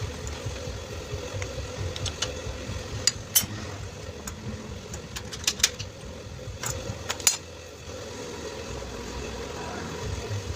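Motorcycle engine running steadily with a low hum, with several sharp metallic clicks in the middle of the stretch.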